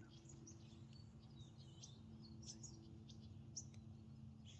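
Faint bird chirps and twitters, many short high notes scattered through, over a steady low hum.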